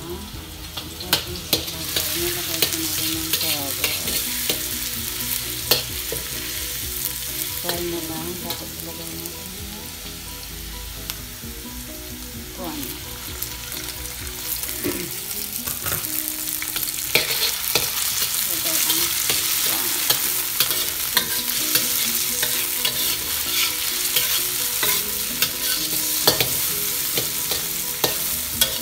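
Oil sizzling in a wok while a metal wok spatula scrapes and clicks against the pan, stir-frying diced carrot and prawns. The sizzle gets louder about halfway through, once the raw prawns go into the hot oil.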